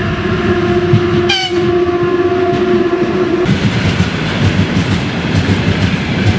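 A train's horn sounds a steady held tone for about three and a half seconds, with a short falling sweep a little over a second in. Then the horn stops and the train runs on the rails with a rumble and the clatter of its wheels.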